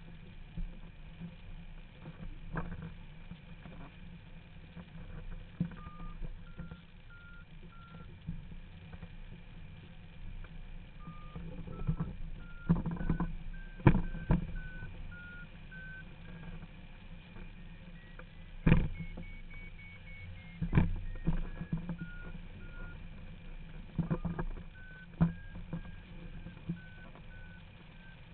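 Hang-glider variometer beeping: a string of short beeps, starting about six seconds in, whose pitch steps up and down and is highest about two-thirds of the way through. The rising pitch signals the glider climbing in lift. Under it, wind rumbles on the microphone, with several loud thumps.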